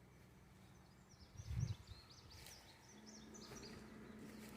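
Faint woodland bird chirps, a quick run of short, high gliding notes, with a soft low thump about a second and a half in.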